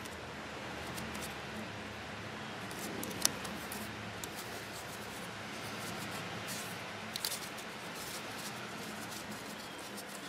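A small piece of cardboard being cut with a folding multi-tool's blade, with faint scraping and a few sharp clicks: one loud click about three seconds in and a cluster of clicks about seven seconds in.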